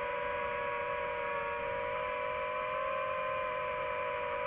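DJI FPV drone's motors and propellers whining steadily in a low hover, the pitch shifting only slightly.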